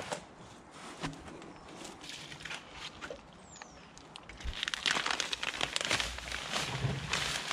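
A few faint knocks, then from about halfway through, the crinkling and rustling of a plastic sack of post-fix concrete mix being handled and opened.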